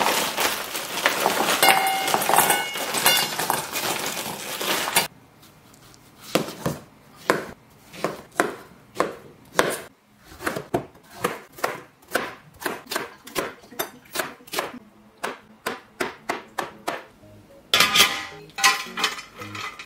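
Kitchen knife chopping on a cutting board, steady knocks about two to three a second. Before that comes about five seconds of a steady rushing noise, which stops abruptly.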